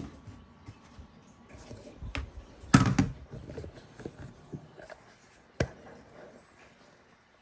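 A few scattered knocks and clatter from things being handled, the loudest cluster about three seconds in, with single sharp clicks before and after.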